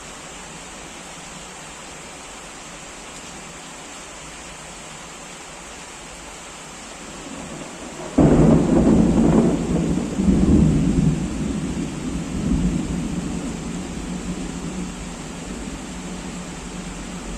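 Steady heavy rain hiss. About eight seconds in, a sudden loud thunderclap breaks, then rolls and rumbles in a few swells, fading slowly over the rest of the stretch under the continuing rain.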